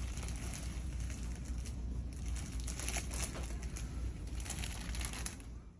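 Irregular crackling and rustling over a steady low rumble, fading and then cutting off near the end.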